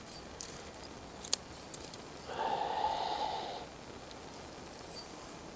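Hand shears snip a wild rose vine with a sharp click about a second in, and again more faintly soon after. The loudest sound is a breathy rush of air lasting just over a second, from about two seconds in.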